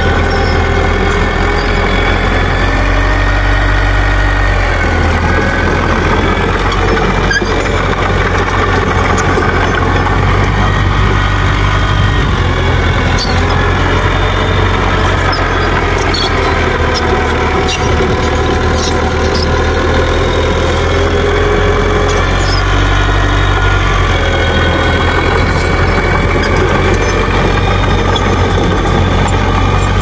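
Small Mitsubishi crawler bulldozer's diesel engine running steadily while it travels and pushes rubble, with wavering squeals from its steel tracks and a few sharp clanks.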